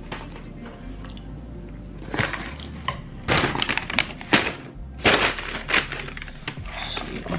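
Paper wrapper and cardboard fast-food box crinkling and rustling close to the microphone as a burger is handled, in a string of short, sharp bursts starting about two seconds in.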